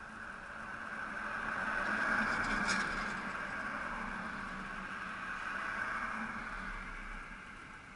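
Two cars driving past one after the other, their tyre and engine noise swelling and fading. The first is loudest about two and a half seconds in, and the second swells again about six seconds in.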